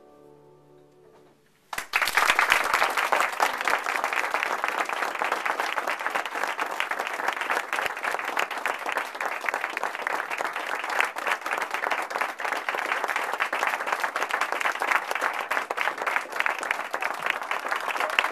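Quiet instrumental music with held notes fades out. About two seconds in, audience applause starts suddenly and goes on steadily.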